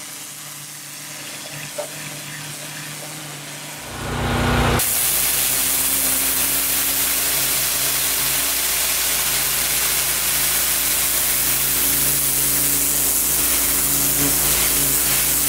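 High-pressure washer jet hissing as it blasts marine growth off a sailboat's keel and hull bottom, over the steady hum of the washer's motor. The sound gets suddenly louder about four seconds in.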